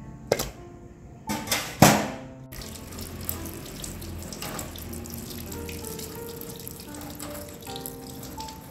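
Tap water running steadily over a raw Spanish mackerel fillet rinsed by hand in a steel sink, after a sharp knock and a few loud bangs and splashes in the first two and a half seconds. Background music plays under it.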